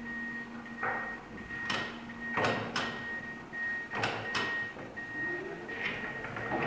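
Rocla electric reach truck moving off and manoeuvring: several sharp clicks and knocks from the truck, a faint high steady whine that cuts in and out, and a low motor whine rising in pitch about five seconds in.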